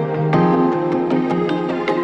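Background music: sustained instrumental notes over a light, regular beat.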